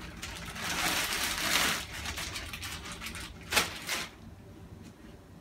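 Plastic bag of mango chunks crinkling and rustling as a hand digs pieces out to fill a NutriBullet cup, with two short sharp knocks about three and a half seconds in.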